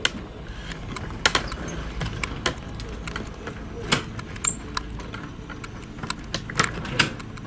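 Scattered sharp clicks and light taps at irregular intervals, a dozen or more, over a steady hiss and a low hum.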